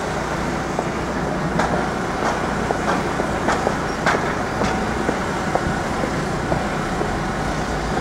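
City street traffic noise, a steady hum of passing vehicles, with scattered sharp clicks or knocks through the middle few seconds.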